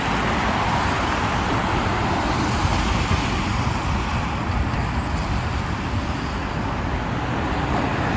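Steady highway traffic: a stream of cars, vans and trucks passing on wet pavement, giving an even rumble and tyre hiss with no single vehicle standing out.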